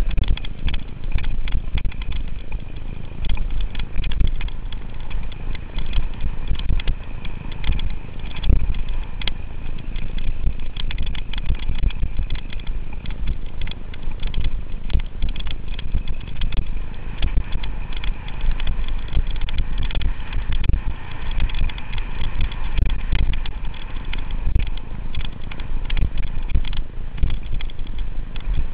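Mountain bike riding fast down a rough dirt trail, heard from a camera mounted on the bike or rider: a constant rush of wind on the microphone, with tyre noise and dense rattling and knocks as the bike goes over bumps.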